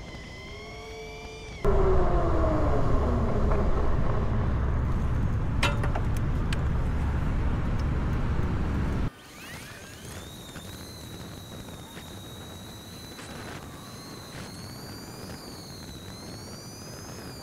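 Heybike Ranger S e-bike's hub motor whining under throttle, a high tone that bends up and down with speed. About two seconds in, a loud low rumble covers it for several seconds while the whine glides down as the bike slows. When the rumble cuts off suddenly, the whine climbs quickly and holds high and steady as the bike gets back up to speed.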